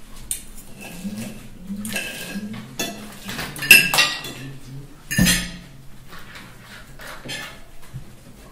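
Cutlery clinking and scraping against plates during a meal: a string of small clinks, with two louder ones a little under four seconds in and about five seconds in.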